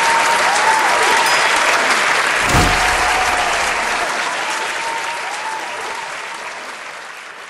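Large audience applauding, the applause fading out steadily over the second half.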